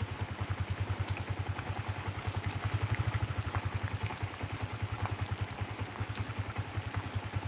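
Motorcycle engine running steadily at low speed, a fast even throb, under a hiss of rain with scattered light ticks.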